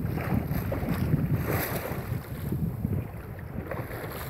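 Wind buffeting the microphone over the wash of choppy water along a Compac 19 sailboat's hull under sail. The wind noise eases a little about three seconds in.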